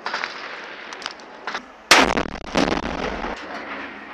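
Gunfire and blasts in urban combat: sharp cracks, with the loudest blast about two seconds in followed by a deep rumble that lasts about a second and a half, and another crack just after.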